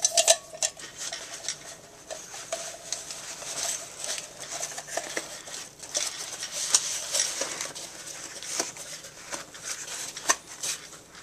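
Fabric canteen pouch rustling and scraping as a steel canteen cup and stove are worked down into it by hand, with irregular small clicks and light metal knocks; a brief metallic clink rings right at the start.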